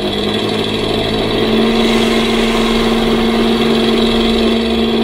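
Ola S1 Pro electric scooter's 'Vintage' mood sound, a synthetic engine note from the scooter's speaker, running as the throttle is opened. It swells over the first second or so, then holds a steady engine-like hum.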